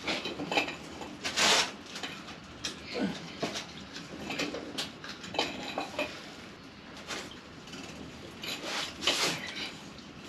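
Metal parts and hand tools clinking and scraping in irregular, scattered knocks, with two longer rasping scrapes, about a second and a half in and near the end, while a tractor's fuel filter is being changed.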